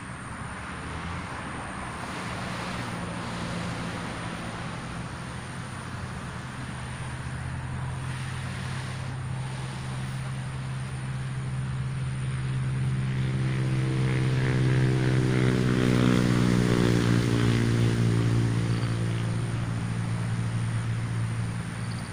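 A passing motor's engine drone that grows steadily louder, peaks about three quarters of the way through, then eases off, its pitch slowly shifting as it goes by.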